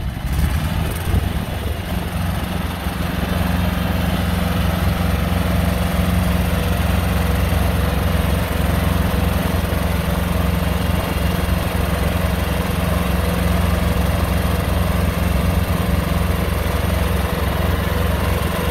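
Small John Deere compact tractor's engine running steadily under load as it drags a weighted pallet across grass, growing louder over the first few seconds and then holding a constant low pitch.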